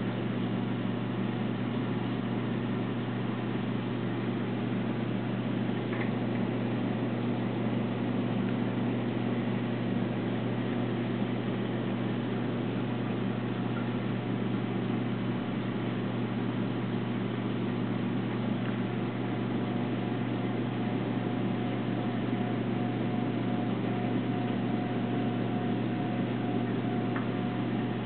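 Steady low electrical hum with an even hiss, the running pumps and water circulation of a saltwater reef aquarium; a faint thin whine joins about two-thirds of the way through.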